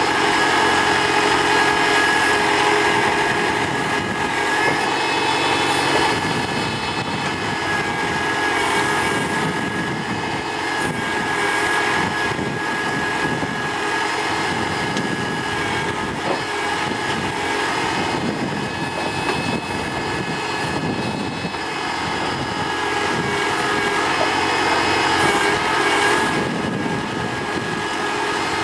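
TAFE tractor's diesel engine running steadily under load as it drives the mounted backhoe's hydraulics to dig and dump soil, with a steady high whine over the engine note.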